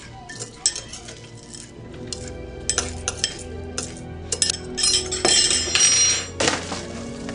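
Metal spoon clinking and scraping against a ceramic cereal bowl in a run of quick strikes, busiest about five to six and a half seconds in. Background music plays underneath.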